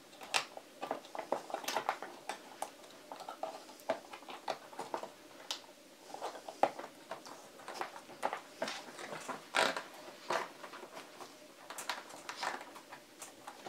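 Irregular plastic clicks and clacks as 18650 cells are pushed by hand into black plastic cell-holder frames and the holders snap into place.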